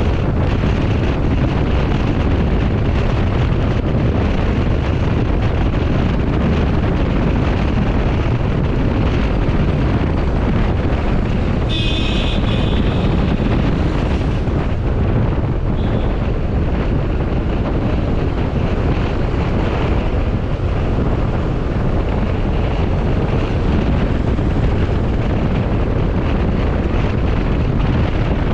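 Wind buffeting the microphone of a moving motorcycle, over a steady rush of engine and road noise. A short high tone sounds about twelve seconds in.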